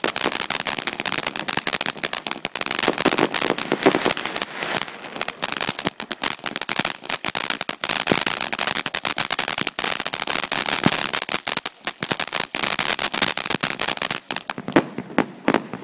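A 200 g consumer firework fountain burning, giving a dense, continuous crackle of many small sharp pops. Near the end the crackle thins to scattered separate pops.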